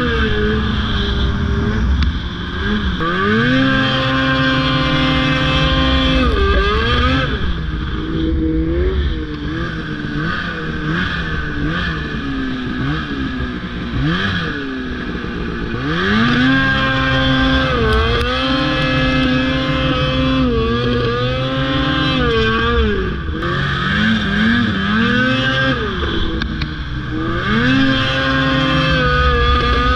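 Snowmobile engine running under way, its pitch climbing as the throttle opens, holding high for a few seconds, then dropping as it eases off, again and again.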